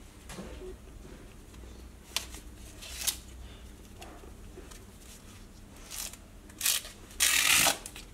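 Green corn husks being torn and stripped from the cob by hand: a few short papery rips, the loudest near the end lasting about half a second.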